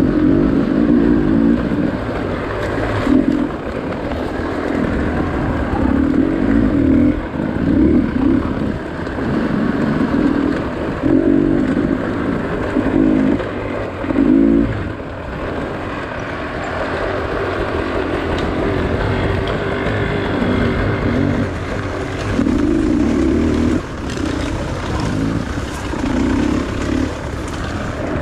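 Dirt bike engine ridden on a forest trail, the throttle opened and closed over and over so the engine note rises and falls every second or two, heard close up from the bike itself.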